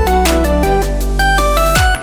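Electronic background music with a steady beat, a heavy bass line and a melody.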